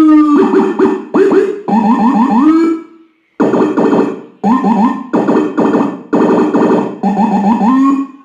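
Electronic siren sounding its low-frequency 'jackhammer' tone: loud, quickly repeated rising chirps, about five a second, keyed on and off in about eight blasts with short gaps between them.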